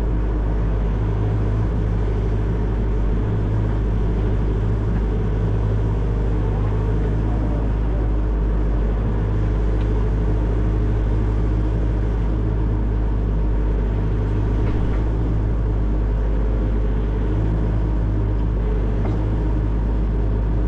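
Excavator's diesel engine running steadily at constant speed, a deep, even drone with no breaks.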